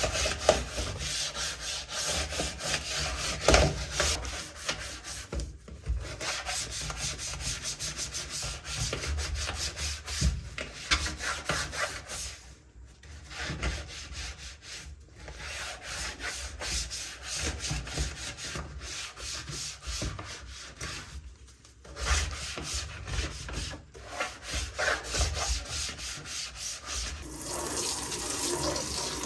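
Rapid scrubbing and rubbing strokes on a dirty keyboard during cleaning, stopping briefly a few times. Near the end the scrubbing gives way to running tap water.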